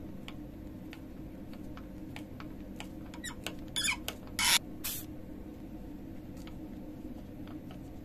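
A screwdriver turning a small screw in a brass tap spindle clamped in a steel vise: faint clicks of the tool in the screw head throughout, and a few short rasping squeaks of metal on metal about three to five seconds in, the loudest near the middle.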